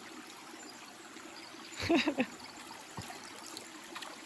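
Creek water trickling and running steadily over rocks, with a brief loud sound about two seconds in and a faint knock a second later.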